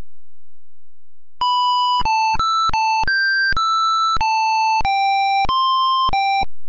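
Computer-synthesized tone playing a ten-note melody, one plain high note after another with no gaps between them. It is the melody the optical music-recognition program has read from the handwritten notes, played back.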